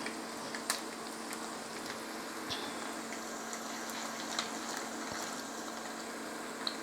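Chicken thigh pieces shallow-frying in hot oil in a pan: a steady sizzle with a few scattered pops and crackles.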